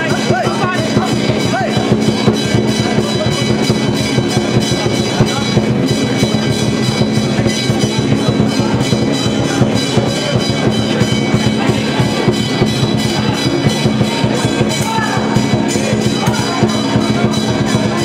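Drums and percussion playing a fast, continuous beat, loud and unbroken, with crowd voices underneath.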